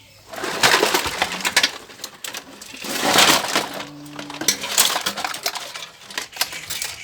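A tub full of toys being tipped out, the toys clattering and knocking against each other in a long jumble of clicks and rattles, loudest about a second in and again around three seconds in.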